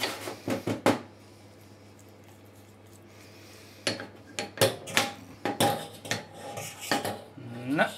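Pastry brush dabbing and scraping in a small ceramic ramekin of spice marinade and being set down on a stainless steel counter. A few sharp clicks and knocks come in the first second, then a quiet stretch, then a run of clicks and short rubs from about four seconds in.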